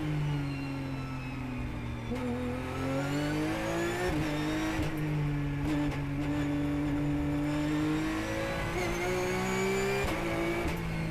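Porsche 911 GT3 Cup car's flat-six engine heard from inside the cockpit. It slows with falling pitch as the car brakes into a corner, then pulls hard through third gear with a steadily rising pitch. An upshift near the end drops the pitch suddenly.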